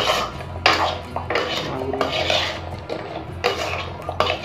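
A metal spoon scraping and knocking against a nonstick frying pan as fried khurma sticks are stirred through sticky sugar syrup to coat them, in uneven strokes about every half second to second.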